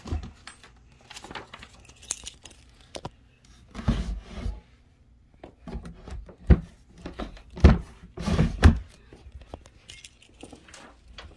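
Sticking dresser drawers being tugged open and pushed shut: scraping and clunks, with several loud thumps in the second half.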